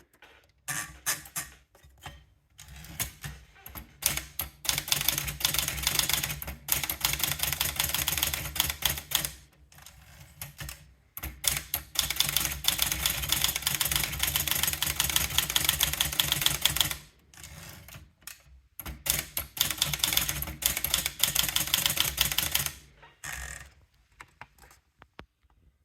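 Underwood 310 manual portable typewriter being typed on: fast runs of sharp key strikes in three long stretches, separated by short pauses and a few single clicks.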